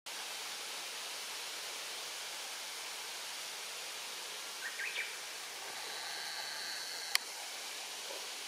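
Steady outdoor background hiss, with a few brief high chirps about five seconds in, a thin high tone held for about a second after that, and one sharp click about seven seconds in.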